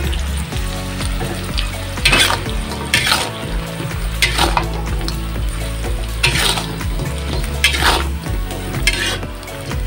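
A metal spatula scraping and tossing tempe, long beans and chilies in a metal wok while the food sizzles. There are about six scrapes, a second or so apart.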